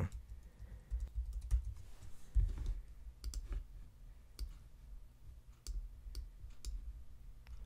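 Computer keyboard keys clicking irregularly as text is typed, with soft low thuds under the keystrokes.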